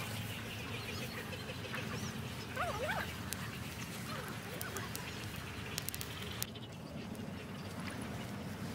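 A few short animal calls, rising and falling in pitch, about two and a half to three seconds in, over a steady low outdoor hum. A few light clicks come around the middle.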